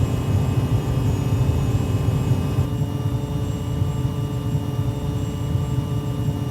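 Air raid sirens sounding a civil-defence test, heard as several held tones at different pitches over a steady low rumble.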